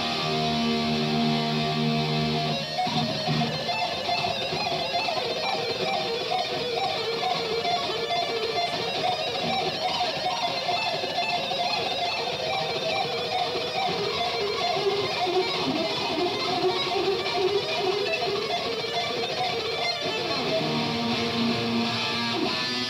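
Unaccompanied electric guitar solo played live through Marshall amplifiers. It opens on held low notes for about the first three seconds, moves into fast, busy lead runs, and returns to held low notes near the end.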